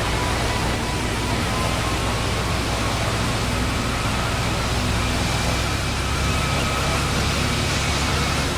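Steady rushing of strong wind and rain on the microphone, with faint high whining tones that drift slightly in pitch.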